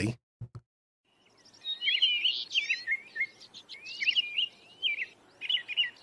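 American robin singing: a string of short, clear whistled phrases that rise and fall, starting about a second and a half in, with a brief pause between groups of phrases.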